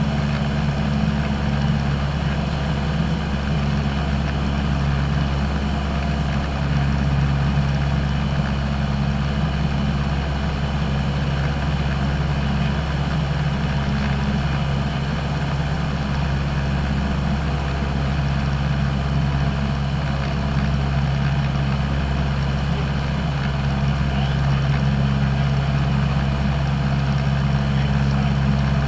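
Piston engine and propeller of a single-engine light aircraft running steadily in flight, heard inside the cabin as a constant low drone.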